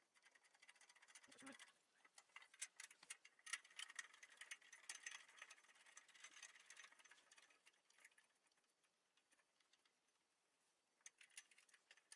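Near silence, with faint scattered ticks and clicks of small metal hardware and tools being handled on a metal desk frame; they thin out about two thirds of the way through.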